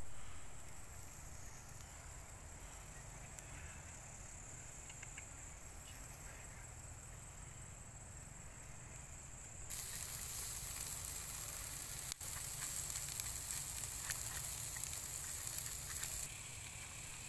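Whole chicken sizzling on a small charcoal grill, with a soft crackle from the coals. The sizzle turns to a louder hiss about ten seconds in.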